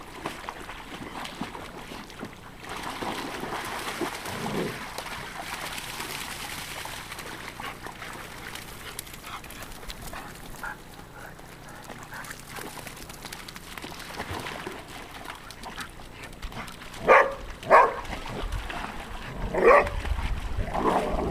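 Groodle barking: two short sharp barks in quick succession, then a third about two seconds later, near the end.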